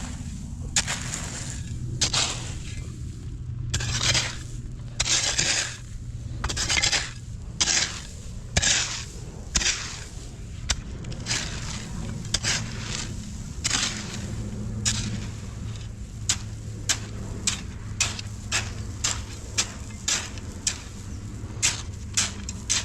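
A shovel scraping through and turning a dry mix of sand and ballast, the gravel crunching at each stroke. The strokes are long and uneven at first, then short and regular, nearly two a second.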